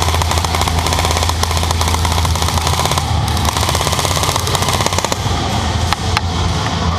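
Airsoft guns firing in rapid bursts, a fast run of sharp clicking shots many times a second, over a steady low hum.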